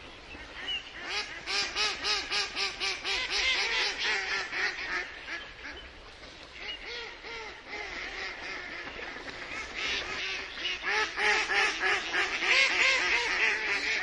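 Domestic ducks quacking in rapid runs of calls: one run about a second in, a quieter spell in the middle, and another loud run near the end.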